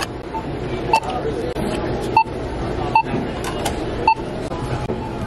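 Self-checkout barcode scanner beeping as items are scanned: four short beeps about a second apart.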